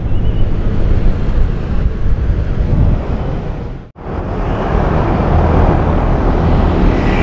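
Street traffic noise: cars and motorcycles passing on a busy road, a steady rumble and hiss. The sound drops out for a moment about four seconds in.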